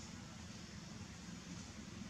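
Faint, steady background hiss with a low hum underneath, no distinct call or knock standing out.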